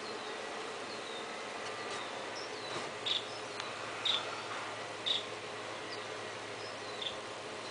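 Outdoor ambience: a steady hiss with faint thin high notes, and a few short, bright high chirps or clinks about a second apart in the middle and once more near the end.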